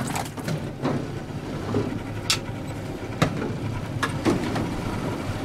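A boat engine idling steadily, with a few sharp knocks as a freshly landed hapuku flaps against the deck grating.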